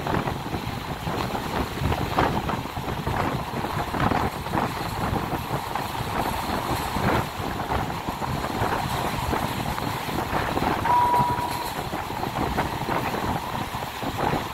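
Passenger train running along the track: a steady rumble with irregular clattering from the wheels and coach. A short, high-pitched tone sounds about eleven seconds in.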